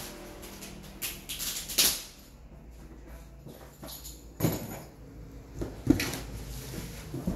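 Packing noise: plastic bags of tea and cardboard cartons being handled. It comes as several short bursts of rustling, with a sharp knock about six seconds in.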